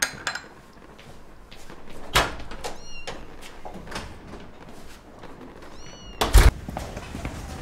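A cat meowing twice, short high calls about three seconds in and again near six seconds. A sharp thump comes about two seconds in, and a louder double thump just after the second meow.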